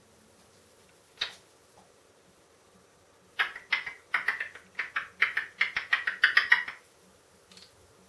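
African grey parrot making a fast run of short, loud clicking chirps, about five a second for some three seconds, after a single click about a second in.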